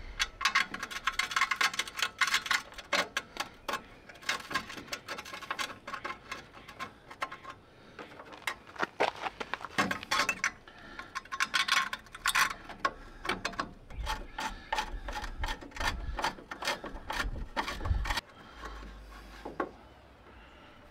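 Irregular clicking, tapping and rubbing of plastic and metal as a replacement van headlight and its housing are handled and worked into place by hand. The clicks come in dense runs and ease off near the end.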